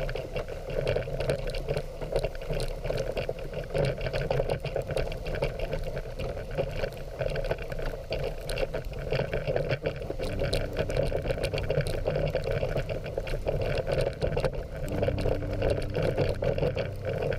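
Dog sled runners hissing and scraping over snow as two Siberian huskies pull the sled at a steady pace, with a crackling texture throughout. A faint steady hum joins about ten seconds in and grows near the end.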